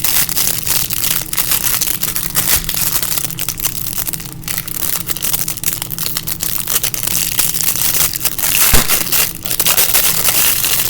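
Continuous crinkling and crackling of plastic packaging being handled close to the microphone.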